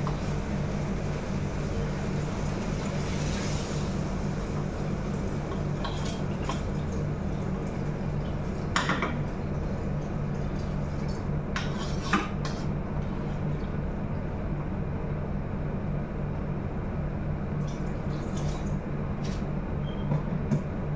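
Hot water poured from an electric kettle into a large stainless steel pot of rice, with several sharp metal clinks of kettle and pot, the loudest about halfway through. A steady low hum sits under it all.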